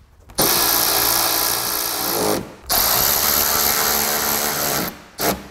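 Small cordless power driver running in two runs of about two seconds each, driving screws that hold the rear bumper cover in at the wheel well. The first run winds down in pitch as it stops.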